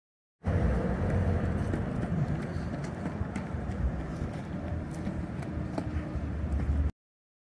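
Outdoor urban ambience with a steady low rumble, such as traffic or wind. It starts abruptly just after the beginning and cuts off abruptly near the end.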